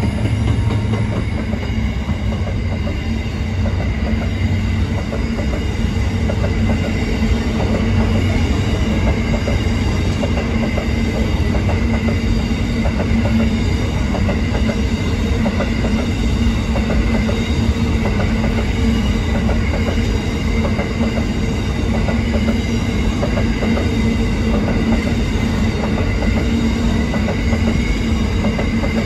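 Empty coal wagons of a freight train rolling past close by: a steady rumble with rapid clicking from the wheels, over a few steady whining tones. The locomotives' low engine drone fades about a second in.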